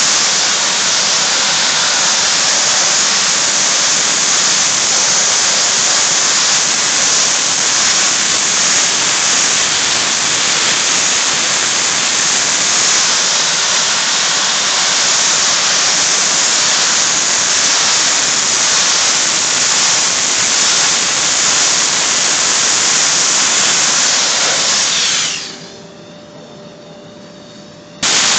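Soda blasting nozzle spraying a steady, loud hiss of compressed air and soda media onto a stainless steel heat exchanger plate, stripping scale from it. The blast stops for about three seconds near the end, then starts again abruptly.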